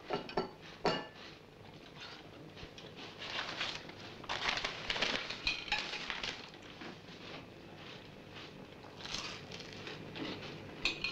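Scattered clinks and clatter of hard objects, some with short ringing tones. Two sharp clinks come at the start and about a second in, denser clatter follows from about three to six seconds in, and more comes near the end, over a faint steady hum.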